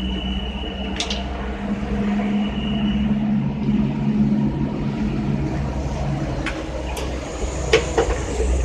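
Electric motorcycle tyre-changer machine running with a steady hum, with a few sharp metallic clicks, one about a second in and three in the last two seconds.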